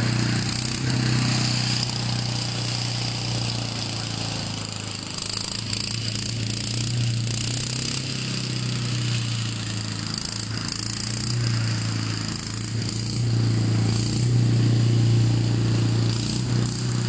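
Steady low drone of a small engine or motor running throughout, a little louder near the end.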